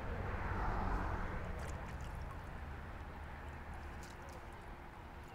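Faint water sloshing and trickling as a landing net holding a trout is moved about in shallow water, loudest in the first couple of seconds, over a low steady rumble.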